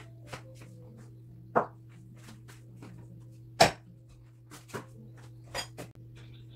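Someone moving about a kitchen and handling things: scattered clicks and knocks, two louder knocks about a second and a half and three and a half seconds in, over a steady low hum.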